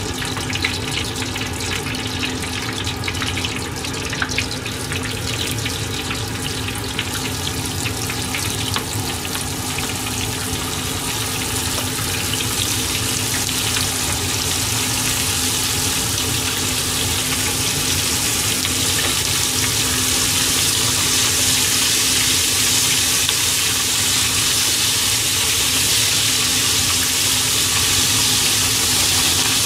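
Hot oil in a frying pan sizzling as flour-dredged whole hatahata (sandfish) deep-fry. The sizzle grows louder and brighter from about twelve seconds in, as more fish go into the oil.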